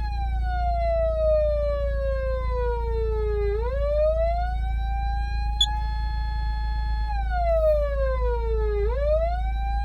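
Patlite SAP500BZ emergency-vehicle siren amplifier sounding a wail: the tone falls slowly in pitch for about three and a half seconds, climbs back, holds briefly at the top, then falls and climbs again near the end. A steady low hum runs underneath, with a single sharp click about halfway through.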